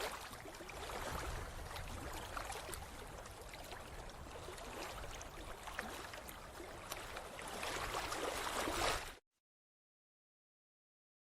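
Rain falling: a steady hiss peppered with sharp ticks of individual drops. It cuts off suddenly about nine seconds in.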